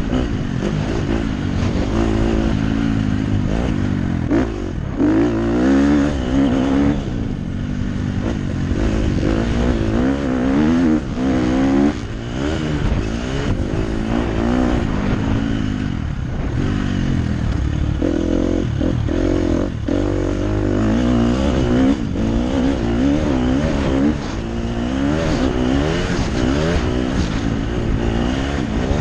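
KTM SX 250F's single-cylinder four-stroke engine under race riding, revving up and falling away again and again as the throttle is worked and gears are shifted. Its pitch rises and falls in repeated waves, with the throttle chopped sharply several times.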